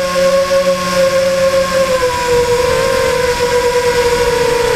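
Steady high whine of a radio-controlled FPV model's electric motor, picked up by its onboard camera's microphone, dipping slightly in pitch about two seconds in, over a rough rumble.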